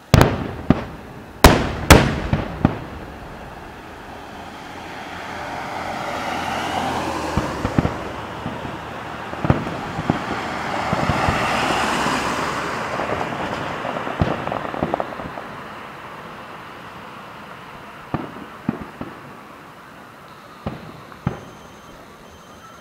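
Fireworks shells bursting: three loud sharp booms in the first couple of seconds, then scattered smaller bangs later. In between, a long swell of noise rises and fades over about ten seconds, most likely a car passing.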